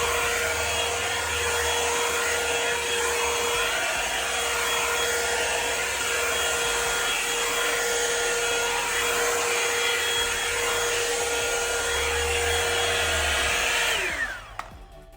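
Revlon One-Step hair dryer brush running steadily with an airy rush and a steady whine, then switched off about a second before the end, its pitch falling as the motor spins down.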